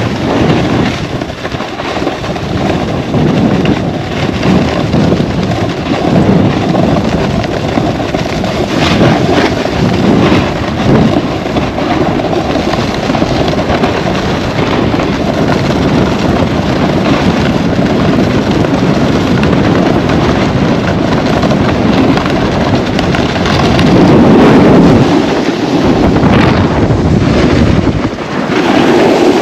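Loud, steady wind rush buffeting an action camera's microphone while riding down a snowy slope, swelling a little about four-fifths of the way through.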